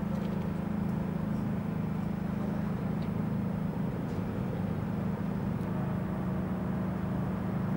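A steady low hum and rumble that does not change, with a few faint ticks.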